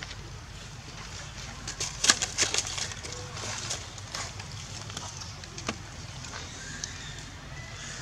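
Outdoor ambience over a steady low rumble: a quick cluster of sharp clicks about two seconds in, then a few faint, short chirping calls later on.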